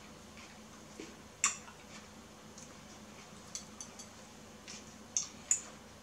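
Metal fork clinking and scraping against a ceramic bowl while scooping up fried rice: a handful of short, sharp clicks, the loudest about a second and a half in and several more in the second half.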